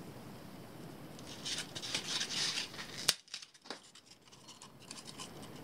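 Scratchy, crackling rub of polystyrene foam being broken up and worked for about a second and a half, then a single sharp click, followed by a few faint ticks.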